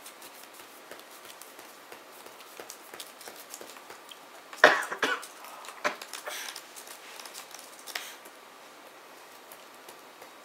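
Trading cards being handled on playmats: light ticks and slides of cards, with one louder sharp noise about halfway through and a few smaller knocks after it.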